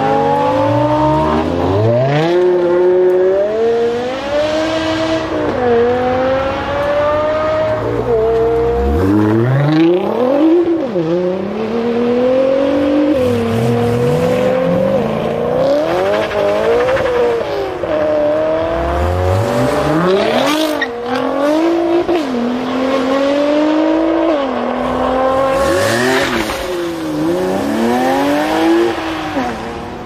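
BMW E92 M3's V8 engine accelerating hard, its pitch climbing through each gear and dropping sharply at every upshift, with spells of lifting off and revving down in between.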